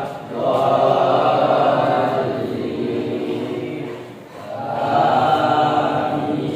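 A group of voices reciting an Arabic prayer together in a chanted unison, two long drawn-out phrases with a short break about four seconds in.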